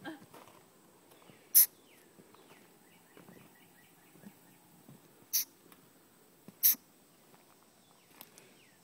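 Baby Virginia opossum giving short, sharp, sneeze-like "chh" calls, three in all with long gaps between. This is the call a young opossum makes to its mother when it has been separated from her.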